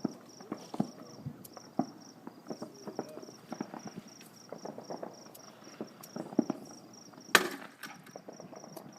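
Fireworks popping and crackling in the distance, with one sharp bang about seven seconds in, while a cricket chirps steadily at about three chirps a second.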